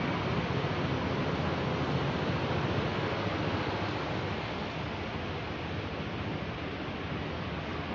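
Steady, even outdoor noise, like wind or distant rushing water, growing slightly quieter toward the end. No monkey calls or other distinct sounds stand out.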